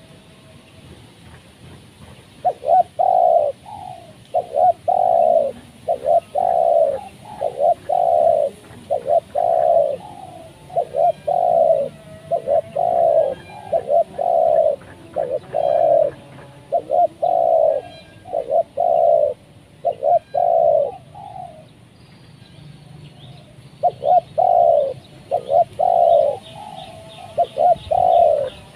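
Spotted dove cooing over and over in a rapid series of loud, husky coos, stopping for about two seconds in the middle before starting up again.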